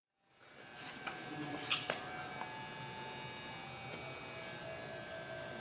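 A steady buzzing drone made of several held tones, fading in from silence within the first second, with a few faint clicks soon after.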